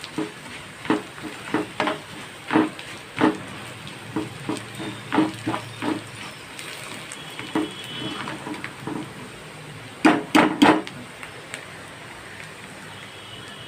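Bitter gourd slices frying in hot oil with a steady sizzle, while a ladle scoops them out and knocks against the pan in irregular clinks, frequent for the first six seconds, with a cluster of louder knocks about ten seconds in.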